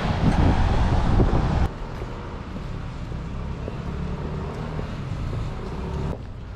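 Wind rumbling on the microphone, cutting off abruptly about one and a half seconds in to quieter city street ambience with traffic.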